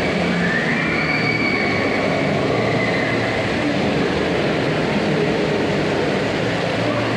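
Steady rushing of water jets and sprays from a water-park splash play structure, with a few faint high shouts in the first three seconds.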